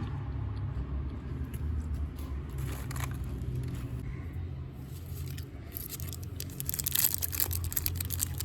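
Candy packaging being crinkled and torn open, with scattered crackles at first, then dense, louder crackling over the last couple of seconds, over a steady low hum.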